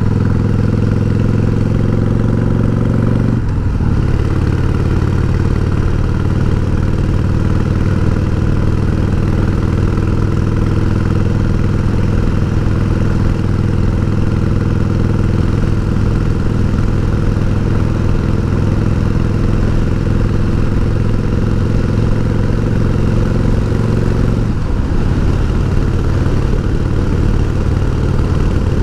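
1988 Harley-Davidson Heritage Softail's Evolution V-twin engine running steadily as the motorcycle and sidecar cruise along the road, with a brief change in the engine note about three and a half seconds in and again about 25 seconds in.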